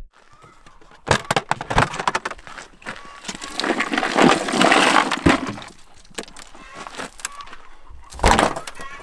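Crushed ice crackling, crunching and clinking as whole sockeye salmon are dug out of an ice-packed cooler. It comes in a run of sharp clicks, is loudest about four to five seconds in, and ends with a single thump near the end.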